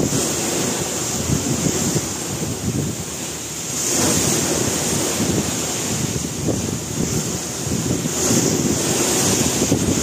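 Wind buffeting the microphone on the open deck of a passenger ship under way, over the steady rush of sea water. The rush swells about four seconds in and again near the end.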